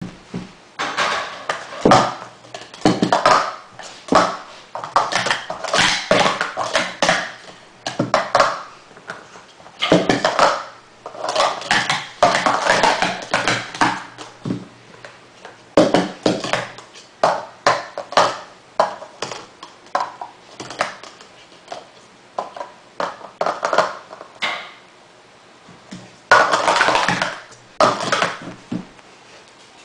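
Plastic sport-stacking cups clattering and clicking as they are stacked up into pyramids and brought back down on a stack mat, in quick runs of rapid clicks with short pauses between them.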